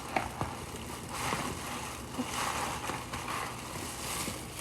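Plastic bag of raw ground meat crinkling and squelching as the meat is pulled out by hand, with a couple of sharp clicks about the first half second.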